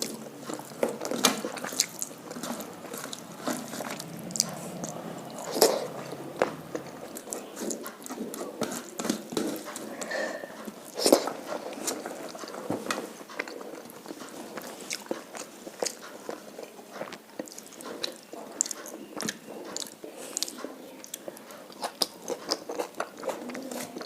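A person chewing and crunching food close to the microphone, with many irregular sharp mouth clicks and smacks.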